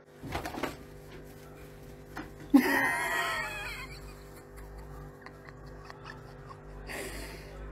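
A sudden, high, wavering cry about two and a half seconds in, lasting over a second, over a faint steady hum.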